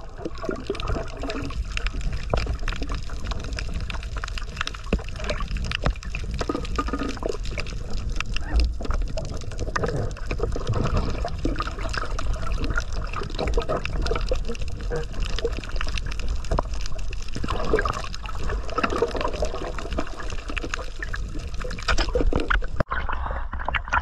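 Water heard from a camera held underwater: muffled sloshing and bubbling over a low rumble, with constant fine crackling. It changes abruptly near the end as the camera comes out of the water.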